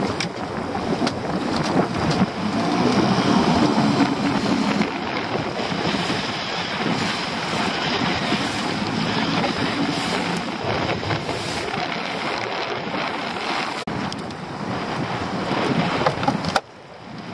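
Wind buffeting the microphone over choppy sea washing and slapping around a small open boat. The sound drops off abruptly near the end.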